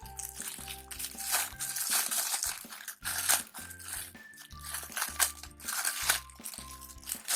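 Background music with a steady rhythmic bass line. Irregular crinkling of plastic toy packaging being handled runs through it.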